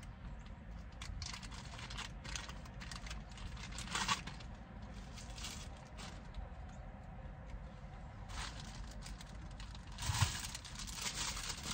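Faint handling sounds of metal-frame aviator sunglasses and a cloth: scattered light clicks and rustles, with a louder tap about four seconds in and a short cluster of knocks near the end.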